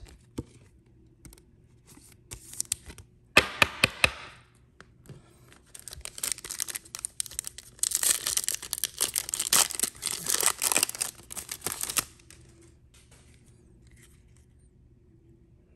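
Shiny foil wrapper of a Prizm trading-card pack being torn open and crinkled by hand. A short crinkle comes about three seconds in, then a longer stretch of crackling and tearing from about six to twelve seconds in.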